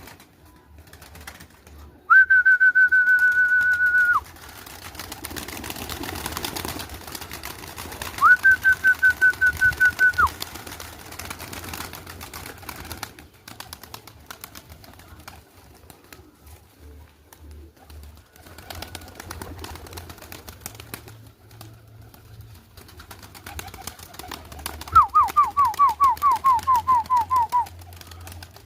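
Bird calls: three high, whistled trills, each about two to three seconds long and made of rapid pulses, about 2, 8 and 25 seconds in. The last trill falls slightly in pitch. A low steady hum runs underneath.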